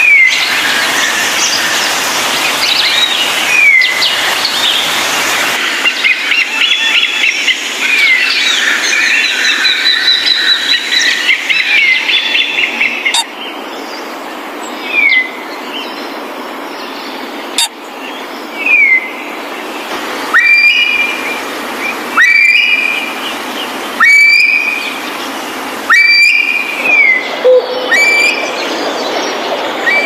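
Birds chirping and calling, with short falling whistles every few seconds. A dense chorus thins suddenly about halfway through, leaving single calls repeated roughly every two seconds.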